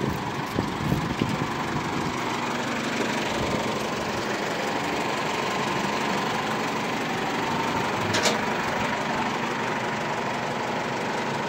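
Engine of the cable reel machine idling steadily after being started on a directly connected battery, with one brief sharp click about eight seconds in.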